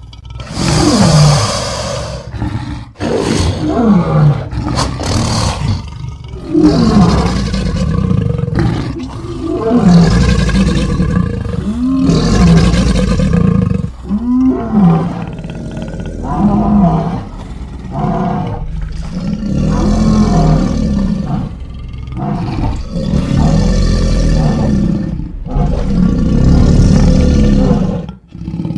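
Designed Cryolophosaurus dinosaur roar sound effects: loud roars and growls one after another, each a second or two long, many sweeping down and back up in pitch.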